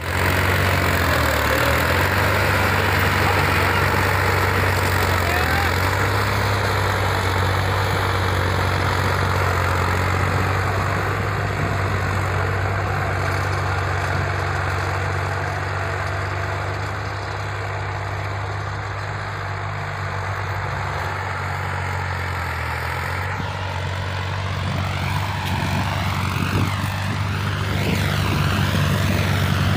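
Farm tractor diesel engines running steadily under load while pulling tillage implements through the soil: a steady low engine hum with a broad rushing noise over it.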